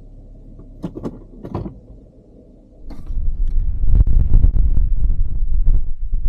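Low steady vehicle-cabin hum with a couple of brief soft sounds, then, about three seconds in, loud low buffeting of wind on the microphone takes over, uneven and throbbing.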